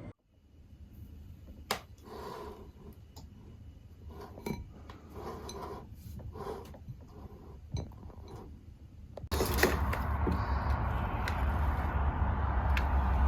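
Scattered light clinks and clicks of dishes and cutlery being handled in a small room. About nine seconds in, they give way abruptly to louder steady background noise with a deep rumble.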